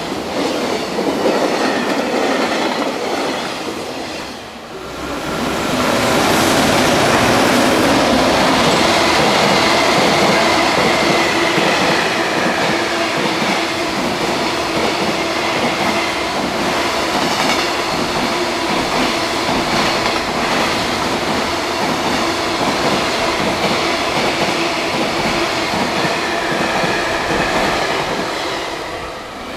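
Container freight train rolling past at speed, its wagon wheels clattering over the rail joints with a faint wheel squeal. The sound dips briefly about four seconds in and then carries on with a second passing train.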